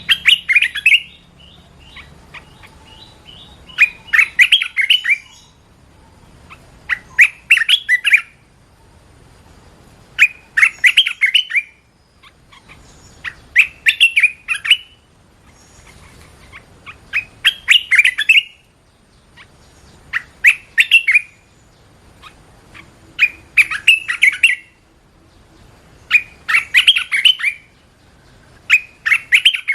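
Red-whiskered bulbul singing: short phrases of quick notes that rise and fall, each phrase about a second long, repeated about every three seconds.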